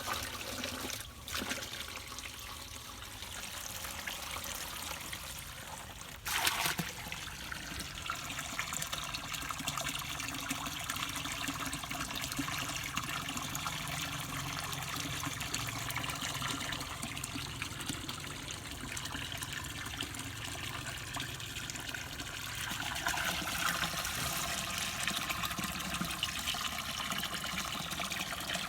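Water running and trickling steadily. It gets suddenly louder about six seconds in and rises again near the end.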